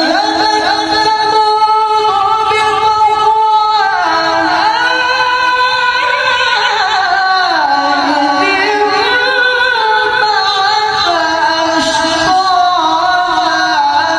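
A man reciting the Quran in melodic, sung tajweed style into a microphone, amplified through a loudspeaker. He holds one long steady note for about the first four seconds, then moves into winding, ornamented runs that rise and fall.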